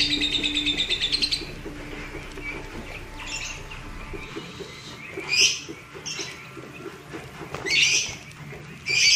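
Lovebirds chattering: a fast run of shrill chirps for about the first second and a half, then a few single harsh squawks spaced a couple of seconds apart.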